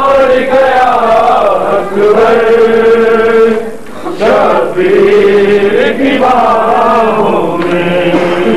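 Male voices chanting a noha, a Shia lament, in long drawn-out notes that glide up and down, with short breaks for breath about every two seconds.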